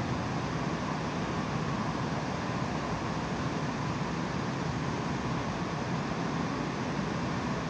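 Steady rushing noise on a Boeing 787's flight deck in flight: airflow past the fuselage and engine noise, even and unchanging.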